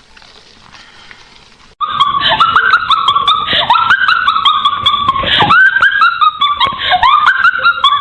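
Faint room tone, then a sudden loud cut about two seconds in to a dog whining and yelping in a rapid run of high cries that rise and fall in pitch.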